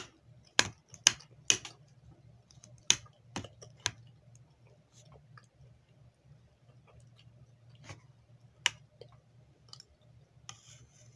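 Eating sounds close to the microphone: a string of sharp clicks and crunches, several in quick succession over the first four seconds, then a few scattered ones, over a faint low hum.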